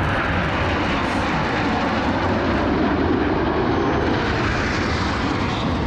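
A formation of Frecce Tricolori Aermacchi MB-339 jet trainers passing low overhead, their Rolls-Royce Viper turbojets making a loud, steady rush of jet noise that swells slightly mid-pass.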